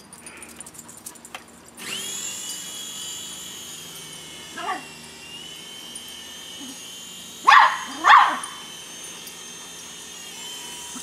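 A dual-rotor toy RC helicopter's electric motors spin up about two seconds in to a steady high whine. A miniature toy poodle barks at it, once faintly midway and twice loudly about seven and a half seconds in.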